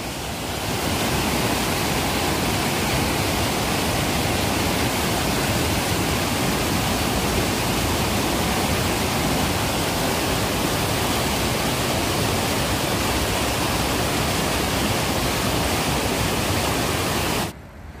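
White water rushing down a stepped concrete channel: a steady, even rush that cuts off suddenly near the end.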